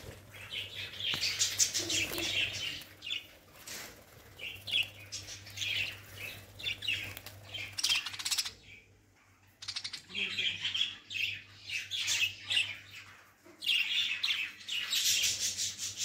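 A flock of budgerigars chirping and chattering continuously, with wing flaps as birds fly about the aviary. There is a brief lull about halfway through.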